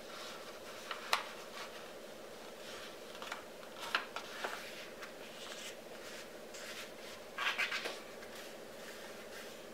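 A sheet of coloured paper being folded and its crease pressed down by hand: soft rustling with a few sharp crackles, and a louder run of crinkling about seven and a half seconds in.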